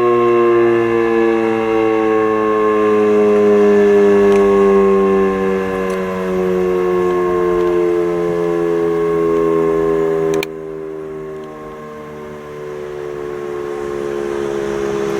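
E57 electromechanical civil defence siren sounding a loud chord-like wail that falls slowly and steadily in pitch. A sharp click comes about ten seconds in, the sound drops noticeably in level, and the falling tone carries on. The siren is faulty and misbehaving during a test alert.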